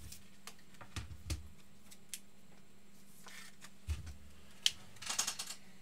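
Trading cards being handled: scattered light clicks and taps, a few soft low knocks, and a short burst of rustling near the end.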